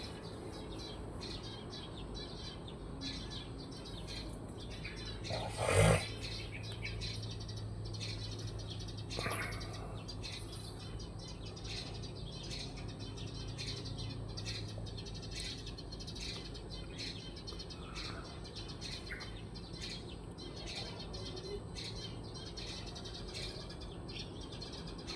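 Small birds chirping in many short, quick calls over a steady low hum, with a brief louder sound about six seconds in.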